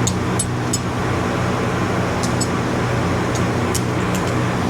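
Steady mechanical hum with a few light clicks.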